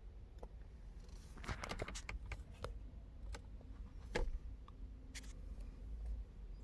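A scattering of small sharp clicks and handling knocks over a low steady rumble. There is a quick run of clicks in the first few seconds and one louder click about four seconds in.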